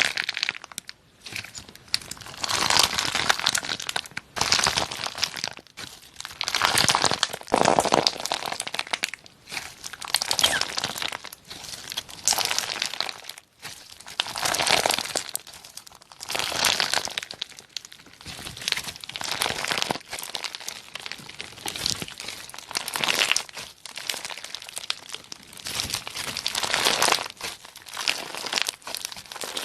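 Slime being squeezed and pressed by hand, making a crackling noise in repeated bursts about every one to two seconds.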